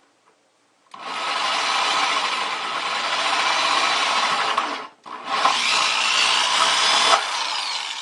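Electric drill cutting a hole, running in two long pulls of the trigger with a brief stop about five seconds in.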